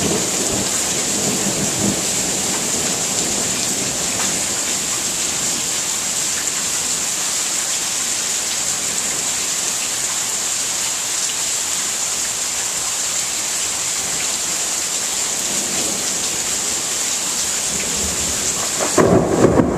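Heavy rain falling in a steady hiss during a thunderstorm. A low rumble of thunder dies away in the first couple of seconds, and a louder, uneven rumble of thunder breaks in suddenly near the end.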